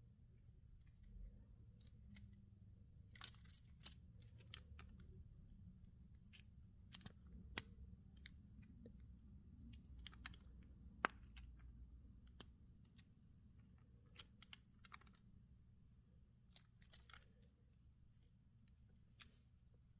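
Faint handling sounds from an unboxing: scattered light clicks and short crinkly rustles, about two louder clicks near 8 and 11 seconds in, over a low steady hum.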